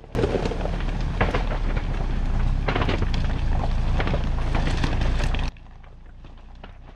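Ford Bronco Everglades tyres crunching and cracking over loose shoreline rocks, with a steady low rumble underneath. The sound cuts off abruptly about five and a half seconds in.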